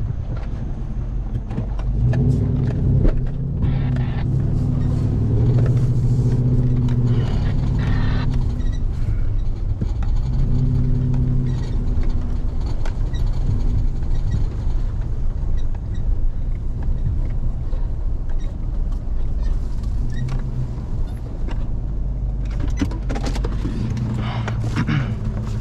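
Pickup truck driving on a dirt road, heard from inside the cab: a steady engine hum and tyre rumble, the engine note swelling and easing off in spells through the first half and again near the end.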